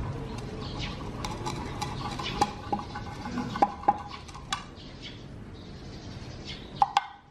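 Wooden chopsticks stirring and scraping an egg in a metal frying pan. Several sharp taps against the pan ring briefly, and one of the loudest comes just before the end.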